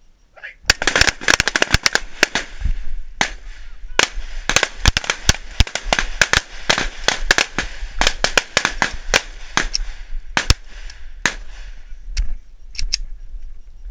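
Pistol gunfire: many rapid, irregular shots, some close enough together to overlap. The shots thin out to a few scattered ones near the end.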